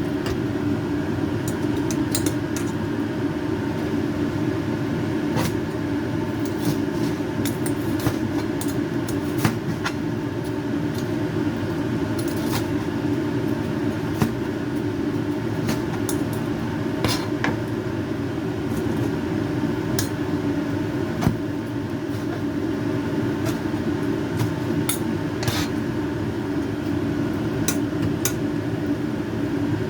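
A steady hum with many sharp, brief clicks and ticks scattered irregularly through it.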